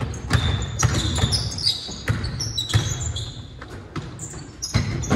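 Basketball bouncing irregularly on a hardwood gym floor, mixed with short high sneaker squeaks as players cut and stop, in a large echoing gym.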